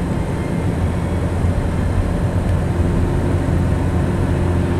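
Inside the cabin of a 2005 Chevrolet Cobalt LS at cruising speed: steady low drone from its 2.2-litre Ecotec four-cylinder engine, over road and tyre noise. A faint higher engine tone comes in about three seconds in.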